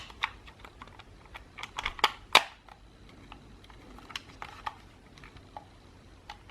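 Irregular plastic clicks and taps from a freshly reassembled Xbox One controller being handled and its buttons pressed to check that it switches on. The loudest clicks come about two seconds in, with fainter, sparser ones after.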